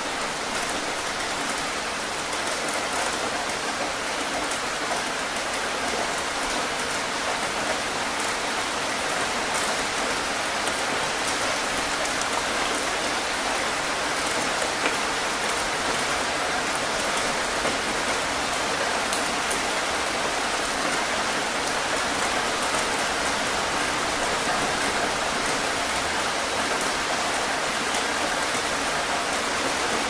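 Heavy rain falling steadily, a dense even hiss of drops on a hard surface.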